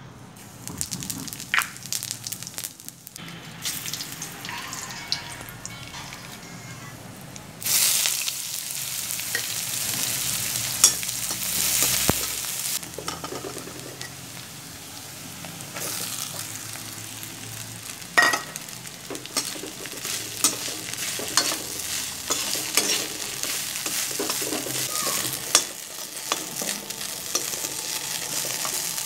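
Food frying in ghee in a metal kadai: chopped onion with whole spices, and later soya mince, sizzling while a steel slotted spatula scrapes and knocks against the pan. The sizzle grows suddenly louder about a quarter of the way in, and the spatula gives a few sharp clanks.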